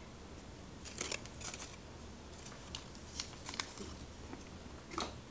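Light clicks and rustles of small plastic and paper pieces being handled on a desk, a few irregular taps a second with quiet gaps, and a sharper click near the end.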